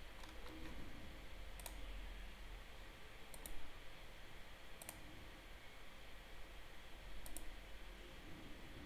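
Faint computer mouse clicks: a few sharp clicks spread over several seconds, two of them double clicks, over low steady hiss.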